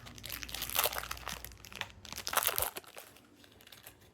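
Plastic snack-bar wrapper crinkling in the hands in irregular bursts, dying down about three seconds in.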